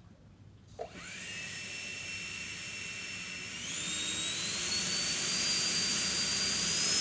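Electric ducted fan of a model rocket spinning up. It starts with a click about a second in, then a high whine holds steady and rises in pitch about halfway through, climbing on from there as the fan speeds up.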